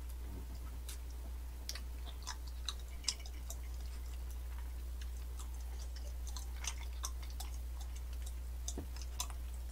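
Faint, scattered wet clicks of a mouth chewing sticky rice cake close to the microphone, over a steady low hum.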